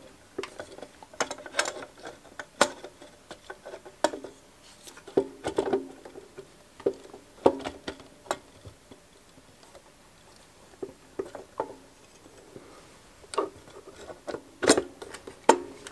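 Irregular clicks, taps and light knocks of metal parts as the front housing of a Bolex M8 film projector is handled and fitted onto its pins, with a quieter stretch in the middle.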